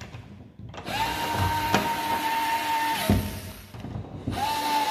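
Cordless electric screwdriver running in two bursts, driving the screws that fix a downlight's mounting ring into a POP ceiling. A steady motor whine starts about a second in and runs for about two seconds, stopping with a knock, then starts again near the end.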